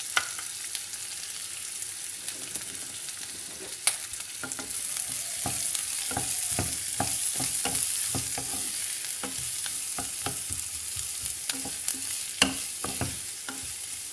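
Chopped onions and green chillies sizzling in oil in a non-stick kadai, stirred with a wooden spatula: a steady high sizzle, with quick scraping strokes of the spatula from about five seconds in and two sharp knocks.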